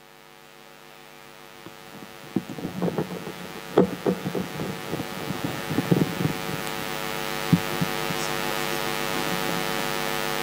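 Public-address microphone being handled and adjusted on its stand: a series of knocks and bumps between about two and eight seconds in, over a steady mains hum and hiss from the PA that grows louder.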